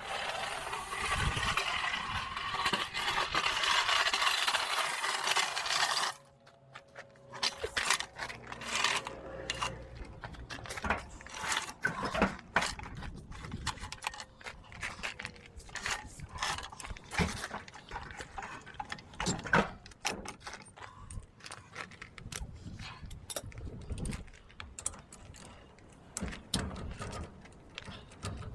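A loud, steady hiss for about six seconds, then irregular metallic clicks, knocks and scrapes of hand tools and parts being worked on a van's rear disc brake.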